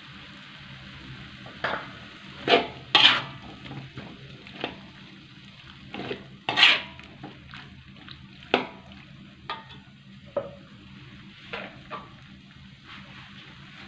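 Metal spatula scraping and knocking against a wok while stirring a thick chili sauce with chicken and squid, over a faint sizzle. The strokes come irregularly, the loudest about two and a half to three seconds in and again at six and a half seconds. A steady low hum runs underneath.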